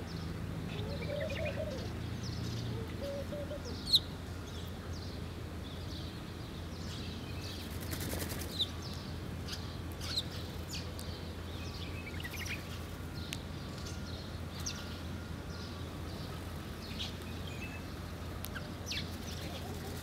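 Mixed flock of ground-feeding birds calling: short, sharp chirps scattered throughout, one much louder about four seconds in, over a steady low hum. A dove coos softly in the first few seconds.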